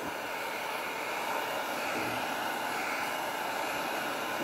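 Handheld heat gun running, a steady blowing rush of hot air with no change in pitch, as it warms clear plastic tubing to soften it for sliding onto a fitting.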